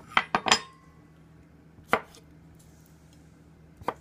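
Chef's knife cutting boiled red-cap boletus chunks against a wooden cutting board. There is a quick run of three knocks at the start, the last with a short metallic ring, then a single knock about two seconds in and another near the end.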